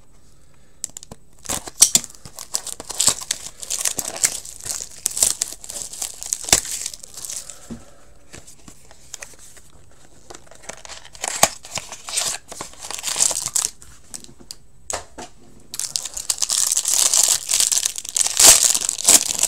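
Packaging crinkling and tearing in bursts as a sealed hockey card box and its foil card packs are opened by hand. The longest, loudest stretch comes near the end.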